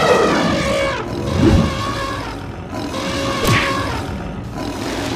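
Cartoon sound effects over steady background music: an animal roar falling in pitch at the start, then two heavy low thumps about a second and a half and three and a half seconds in.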